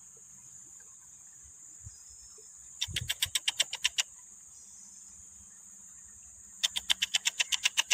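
Steady high chirring of insects such as crickets. Twice, about three and about seven seconds in, comes a loud rapid rattle of about ten sharp clicks, each rattle lasting just over a second.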